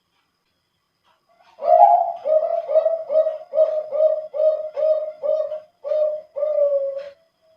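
Male zebra dove (perkutut, Bangkok contest line) singing one phrase in a thick, deep voice: an opening note about a second and a half in, then about ten quick, evenly spaced coos, closing on a longer drawn-out coo near the end.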